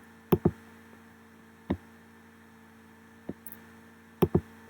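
Computer mouse clicks: a quick double-click, a few single clicks, then another double-click near the end, over a steady electrical hum.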